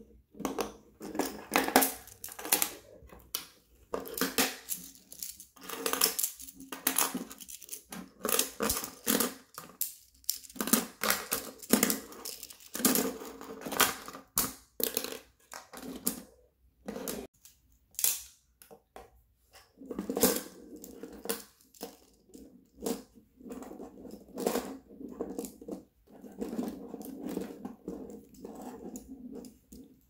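Crenova plastic magnetic building tiles clicking as they snap together and clattering against a wooden table, in many quick irregular clicks and knocks.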